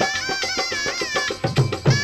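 Folk music from a dastan ballad recording: a held melody line that bends in pitch, over quick, steady drum beats, with a few louder drum strokes near the end.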